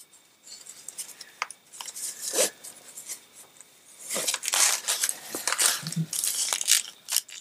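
Rustling and handling noise as a velvet drawstring pouch is picked up and opened over plastic-wrapped items, with scattered small clicks. The rustling gets busier about halfway through.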